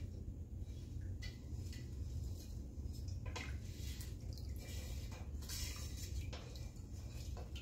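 Water-based dye bath being stirred in a stainless steel pot: soft swishing and occasional small splashes, over a steady low hum.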